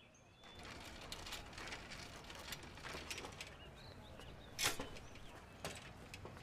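Bicycle being handled and wheeled, its rear freewheel ratchet ticking rapidly, with one sharp clack about two-thirds of the way through. A few bird chirps come just before the ticking starts.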